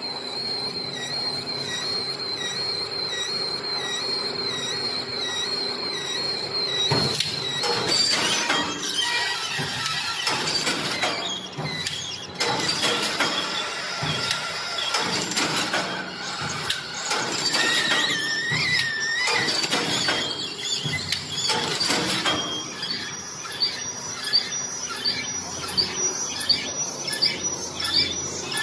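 Bamboo weaving machine running: a high, steady squeal that wavers slightly for the first several seconds, then a jumble of rapid clicks and knocks with shifting whistling tones.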